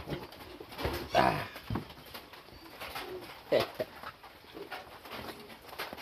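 A dove cooing: a few soft, low calls with falling pitch, one about a second in and another about three and a half seconds in.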